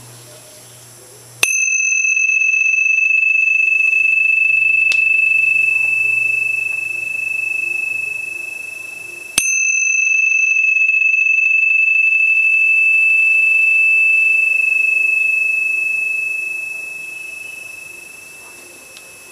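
Bronze tingsha cymbals struck together twice, about eight seconds apart. Each strike rings one clear, high, resonant tone that sustains for several seconds before slowly fading.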